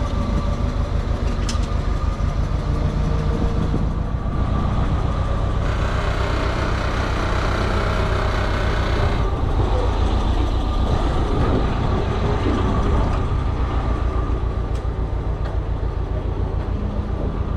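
Forklift engine running steadily with an even low throb. There is a louder, hissier stretch from about six to nine seconds in.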